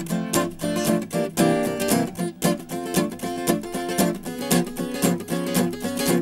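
Background music: a plucked guitar playing in a steady, quick rhythm.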